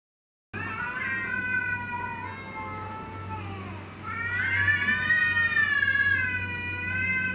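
Stray cats yowling in a fight standoff: a long, wavering caterwaul starting about half a second in, then a second, louder yowl that rises and falls, over a low steady hum.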